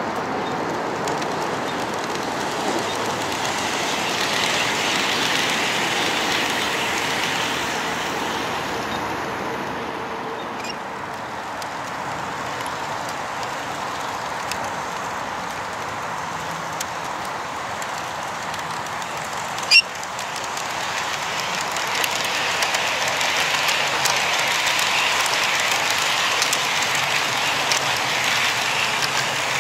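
HO-scale model trains running on sectional track, wheels rolling along the rails. The sound swells as a train passes close, once a few seconds in and again from about twenty-two seconds on, with a single sharp click just before twenty seconds.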